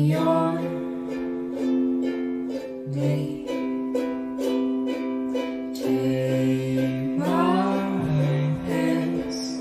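Instrumental passage of a gentle song: a plucked string instrument picking quick repeated notes over a held note and low bass notes, with a brief gliding phrase about seven seconds in.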